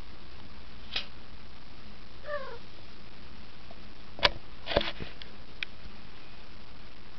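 A kitten gives one short, quiet mew about two seconds in. Around it come several sharp knocks and clicks, the loudest a little past four seconds, followed by a quick cluster of smaller ones, all over a steady hiss.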